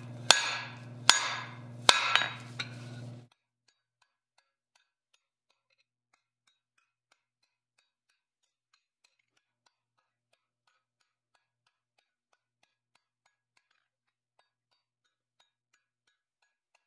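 Hammer blows on a red-hot steel bar on an anvil, a ringing strike about every 0.8 s over a steady low hum, knocking back the corners at the end of the bar. The sound cuts off suddenly about three seconds in, leaving near silence with faint ticks.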